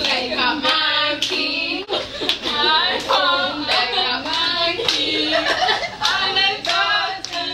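Group of voices singing a chant-like song, with rhythmic hand clapping keeping the beat.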